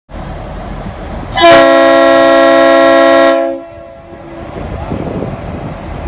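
Leslie RS5T five-chime air horn on a V/Line N class diesel locomotive sounding one long chord of about two seconds as a departure signal. It starts about a second and a half in and cuts off sharply with a short echo, over the low rumble of the idling locomotive.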